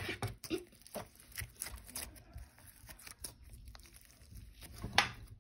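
Textured slime, a grainy white 'sticky rice' layer over glossy yellow slime, being squeezed and pulled apart by hand. It gives irregular sticky crackles, pops and clicks, the loudest a little before the end.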